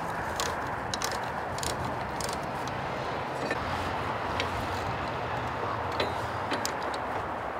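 Small metal clicks and clinks, a few irregular ones a second, as a wrench turns the nut onto the new safety shear bolt in a Hi-Lift jack's running gear. They sit over a steady background noise.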